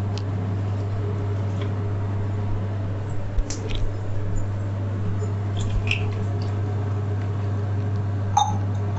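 Scattered small taps and wet squishing from handling tea ingredients (crushed ginger and herbs) in a pot, over a steady low hum.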